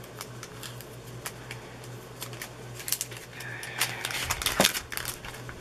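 Scissors snipping through the thin clear plastic cover film of a diamond painting: a string of short, irregular snips that come more often and louder in the second half, with some crinkling of the plastic.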